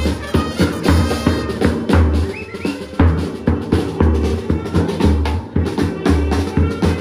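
A marching banda de pueblo playing: a bass drum struck on the beat about twice a second with a snare drum, under trumpets and saxophones playing the tune.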